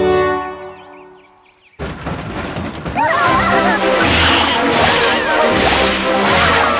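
Cartoon soundtrack: music fades out over the first second or so, and after a brief gap a sudden loud whooshing rush of sound effects sets in, with wavering squealing cries over it.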